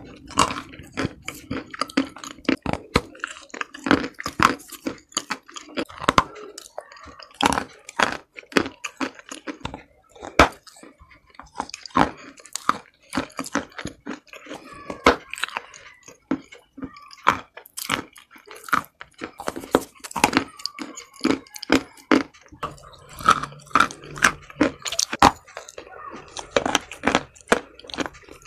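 Close-miked biting and chewing of pieces of Monastyrsky chalk coated in black paste and dusted with chalk powder: dense, irregular crunches and snaps, several a second.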